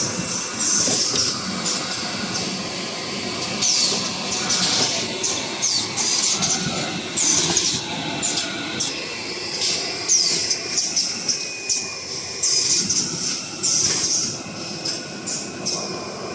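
Small toilet roll paper making machine running, with a continuous clattering of its mechanism and short hissing bursts every one to three seconds, some dropping in pitch.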